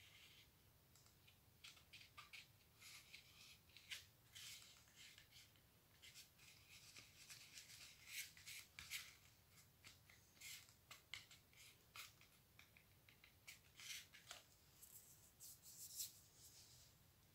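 Faint, irregular rustling and scratching of a paper template being pressed and rubbed flat onto cardboard with the fingers.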